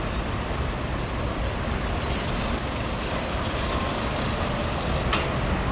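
Diesel lorries and a car passing in street traffic, the lorry engines running steadily under the road noise. There is a short hiss of air, like an air brake, about two seconds in.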